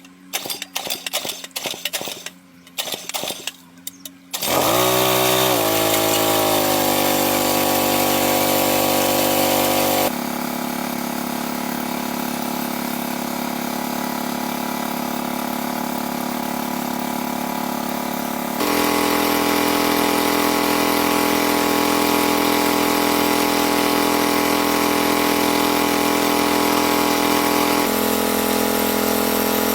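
A small engine starts about four seconds in, revs up and settles into a steady run. Its level and tone shift abruptly a few times after that.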